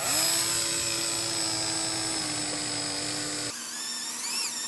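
Cordless drill boring a half-inch hole at an angle into a Christmas tree's wooden trunk: a steady motor whine that sags slightly in pitch under load. About three and a half seconds in the sound changes to a higher, wavering whine.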